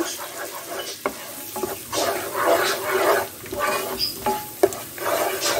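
Wooden spoon stirring and scraping flour through sizzling melted butter in a pot, in repeated strokes: flour being toasted in butter for a roux.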